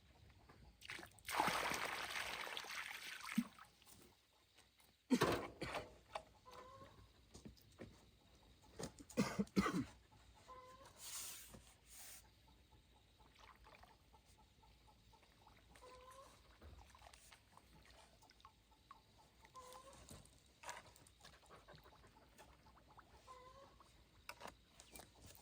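Farm animals: a short rising call repeats every few seconds, with a loud noisy rush lasting about two seconds near the start and a few sharp knocks.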